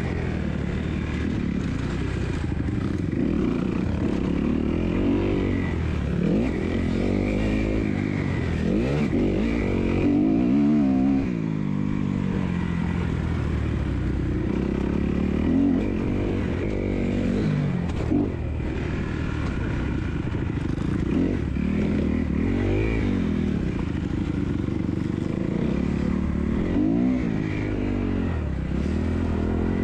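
Kawasaki 250F motocross bike's single-cylinder four-stroke engine, heard on board, revving up and down over and over as it is ridden around a dirt track.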